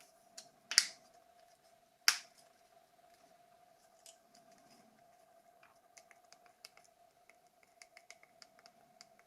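Two sharp plastic clicks close together, then a scatter of small, faint ticks and taps: the plastic parts of a Nokia 6600 slide phone being handled and pressed into place during reassembly. A faint steady hum runs underneath.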